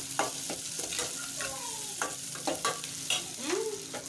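Onions, garlic, ginger and green pepper sizzling in a little oil in a sufuria, with the utensil scraping and knocking against the pot in short sharp clicks as the mixture is stirred.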